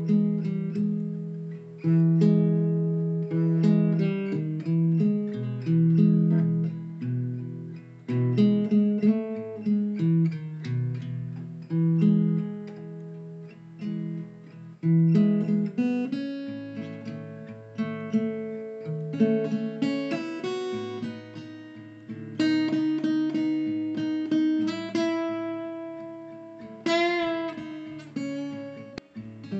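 Background music: acoustic guitar playing a run of plucked and strummed chords, each note ringing and fading.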